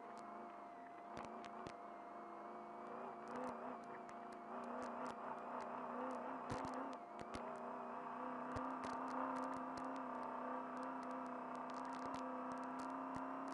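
Off-road trophy truck's engine running under load, heard from inside the cab, growing louder in the second half as the truck speeds up. Sharp clicks and rattles from the truck and the rough ground sound over it, with a thin steady whine.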